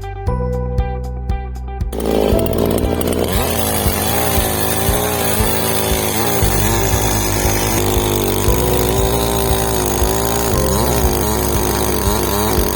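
Ibell chainsaw running hard, as in cutting teak wood, its engine pitch rising and falling under load. It starts about two seconds in, over background music with a steady beat.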